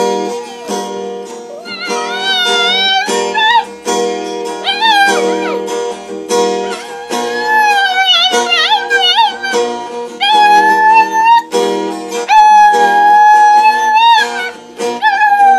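A puppy howling along to a strummed acoustic guitar: a run of howls that waver up and down, the later ones held long on one steady pitch.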